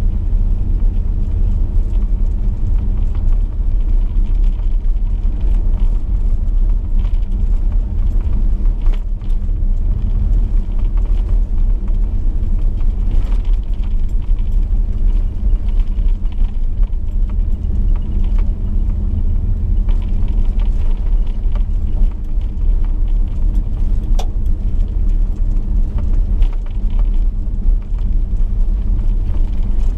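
Chevrolet V8 car cruising on a gravel road: a steady low rumble of engine and tyres, with scattered light clicks and rattles.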